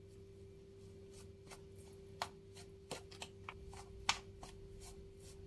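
Hand kneading a crumbly dough of mashed tofu and flour in a plastic bowl: soft rustling and squishing with a few sharper clicks, the loudest about four seconds in. A steady faint hum runs underneath.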